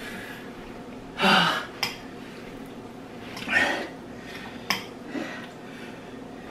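Two loud breathy exhales of someone whose mouth is burning from very spicy noodles, with short clicks of a fork against a bowl in between.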